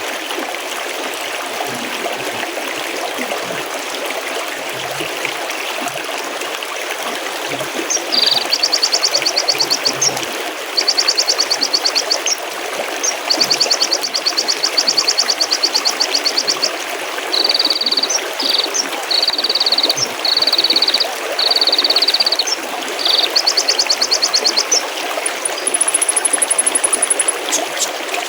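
Mountain stream babbling steadily. About eight seconds in, a songbird starts singing rapid high trills in repeated phrases, some pitched lower, with a very high short trill near the end.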